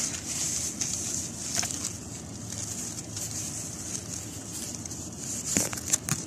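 Fig leaves and branches rustling and brushing as a hand pushes through them, with a few sharp crackles near the end, over a steady high hiss.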